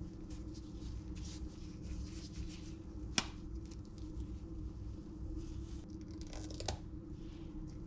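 Gloved hands handling a halved avocado, with soft rustling and squishing. About three seconds in comes a single sharp knock as a knife blade strikes the avocado pit, and near the end a smaller click, all over a steady low hum.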